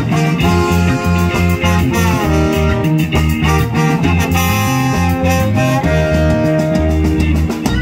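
Live reggae band: trombone and saxophone playing a horn line together, with notes held and slid, over drums and a stepping bass line.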